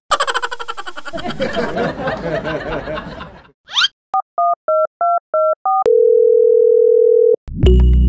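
Edited-in electronic sound effects. There is a dense jumble of sound for the first few seconds and a short rising whoosh, then six quick beeps alternating between two pitches, then a steady single-pitch tone like a telephone dial tone for about a second and a half. Music starts near the end.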